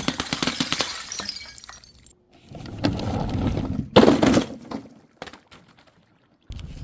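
Glass breaking: the tail of a shatter, with shards tinkling and settling, then a second sharp smash about four seconds in, followed by a few scattered clinks.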